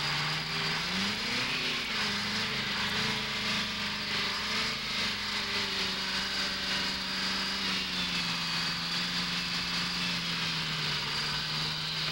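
Engine sound effect for a witch's motorized broom: a small engine running steadily, its pitch rising about a second in and easing back down to a steady hum, a terrible racket.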